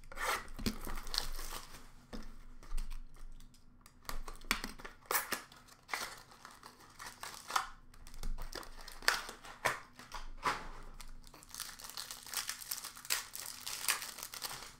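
Foil wrappers of Upper Deck SP Game Used hockey card packs crinkling and tearing as packs are handled and ripped open, in an irregular series of short rustles.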